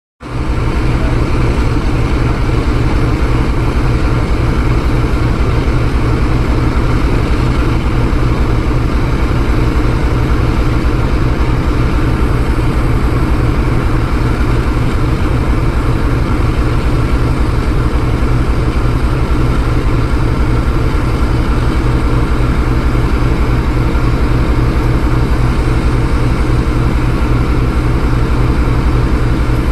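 WDG-4G diesel-electric locomotive's GE V12 diesel engine running steadily, a deep, even throb that is strongest in the bass, the engine's steady "breathing".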